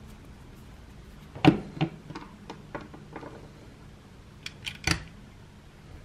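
Plastic toy figures being handled and set down on a tabletop: light clicks and taps, the loudest about a second and a half in, a few more over the next two seconds, and three quick ones near the end.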